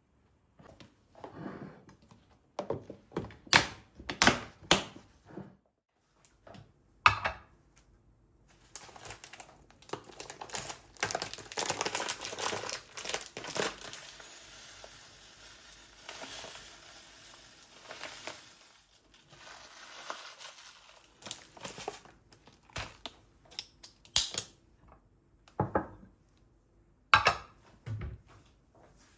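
Hands handling things: crinkling and rustling, with scattered knocks and clicks before and after a longer spell of crackling in the middle.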